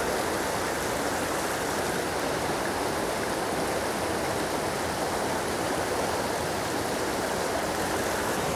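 Mountain headwater stream flowing: a steady, even rush of water.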